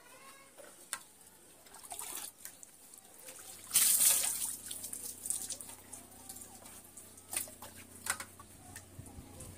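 Water poured from a small plastic bowl over a person, splashing onto a concrete floor. The loud splash comes about four seconds in, with lighter splashing and drips around it and a few sharp knocks later.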